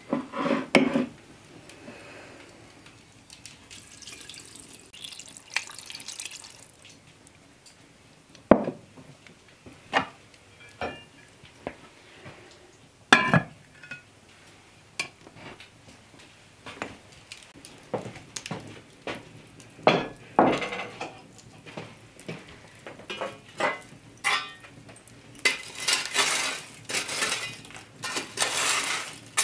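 Hearth cooking sounds: water splashing into a pot near the start, then scattered clanks and knocks of a cast iron Dutch oven and its iron lid being handled. From about 25 seconds in, a denser hissing, scraping noise as coals are worked in the open hearth with an iron tool.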